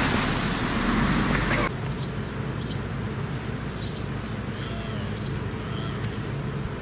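Outdoor ambience: a steady rushing noise stops abruptly about a second and a half in, leaving a steady high insect drone with a short high chirp repeating about once a second.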